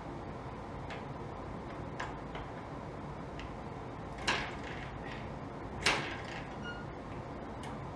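Two kicks on the kickstart lever of a Jawa 634 two-stroke twin, about a second and a half apart, each a sharp clack as the engine turns over without firing: the priming kicks with the ignition switched off. A few fainter clicks come before them.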